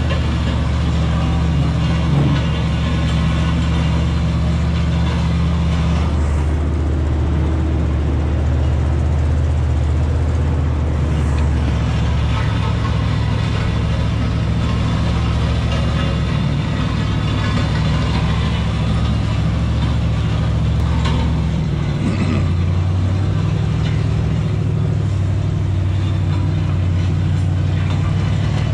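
Pickup truck engine running steadily under load while towing a heavy steel land plane over a dirt road, its note shifting a few times, with the rough scrape of the steel frame dragging through the dirt underneath.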